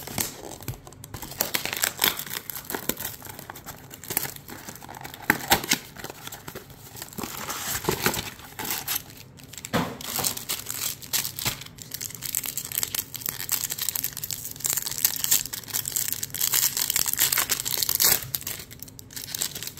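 A trading-card blaster box torn open at its tear strip, then Topps Stadium Club Chrome foil packs handled and a foil wrapper ripped open: a run of crinkling and tearing rustles, thickest near the end.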